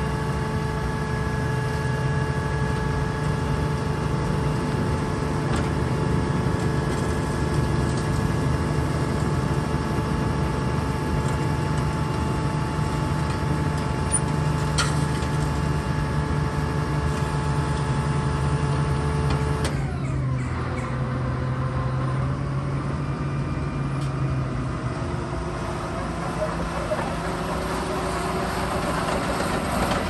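Vögele Super 1800-3i tracked asphalt paver running, its diesel engine humming under several steady whining tones while the screed extensions draw in. About two-thirds through, the whine drops in pitch and fades, and near the end changing tones come in as the paver turns on its tracks.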